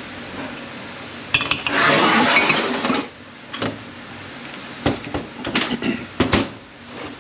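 Steel automatic-transmission parts being handled on the bench: a second or two of dense metallic rattling and clinking, then several sharp metal-on-metal clinks and knocks.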